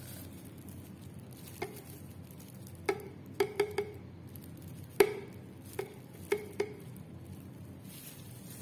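Metal ice cream scoop knocking against a glass bowl while soft dragon fruit sorbet is scooped out: about nine short ringing clinks, the loudest about five seconds in.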